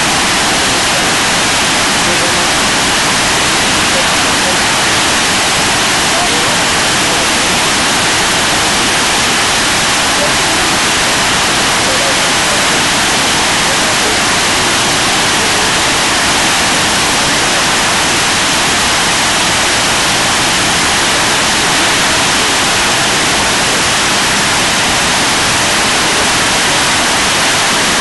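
Tortum Waterfall: a large waterfall's falling water and spray making a loud, steady, unbroken rush.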